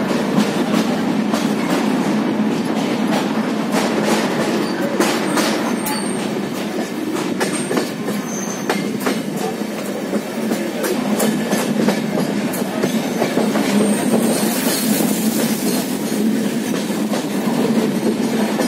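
Passenger train coach running on the rails, heard from its open doorway: a steady rumble with frequent irregular clickety-clack clicks of the wheels over rail joints.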